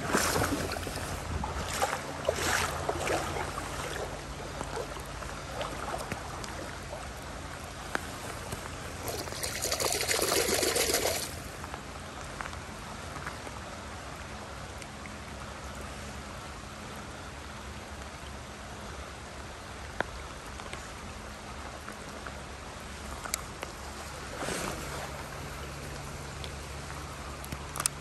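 Steady wash of rain falling on a river and the current flowing. There are a few sharp clicks and knocks in the first few seconds, and a louder rush of noise lasting about two seconds, about ten seconds in.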